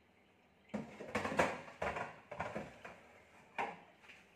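A dish being set onto the rack of a built-in steam oven, with a run of irregular clinks and rattles, then a sharper knock about three and a half seconds in as the oven door is shut.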